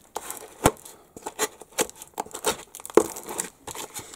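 Brown packing tape being peeled and torn off a cardboard book mailer while the cardboard is pulled and handled: a run of short, irregular rips and crinkles, the sharpest about three seconds in.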